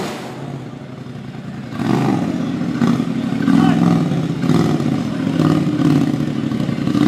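Racing UTV engine revving in uneven bursts on and off the throttle, quieter for about the first two seconds and then surging repeatedly, with a few short clacks.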